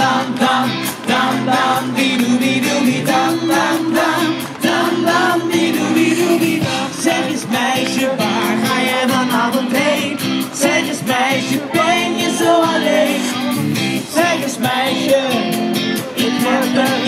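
Live pop band with drums and keyboard playing a song, a singer on lead vocals over it.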